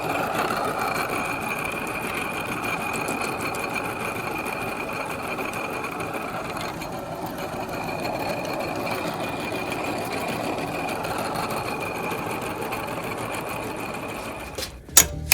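Electric meat grinder's motor running steadily with a thin, even whine. Near the end it gives way to a run of sharp clicks.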